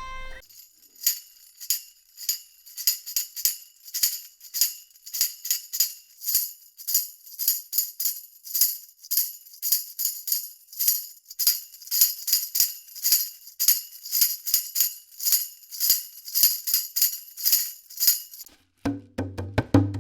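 Tambourine played alone in a steady rhythm of shakes and strikes, its jingles ringing bright. A fiddle note cuts off just as it begins, and a lower, hollow knocking percussion takes over near the end.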